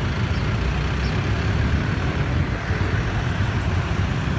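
Steady city road traffic: a continuous low rumble of passing vehicles, with no single vehicle standing out.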